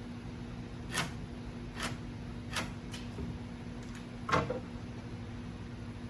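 Half a dozen light clicks and taps of a speed square and pencil handled against pine 2x3 boards while cut lines are marked across them, the loudest a slightly fuller knock about four seconds in, over a steady low hum.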